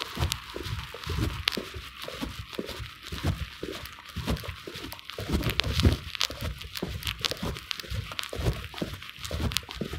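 Footsteps on brick paving, mixed with irregular low thumps and rustling from a phone's microphone being carried while walking.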